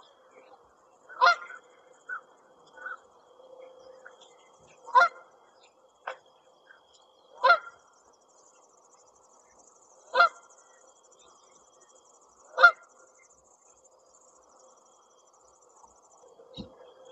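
Canada geese honking on the water: five loud single honks spaced two to three seconds apart, with a few softer calls between them.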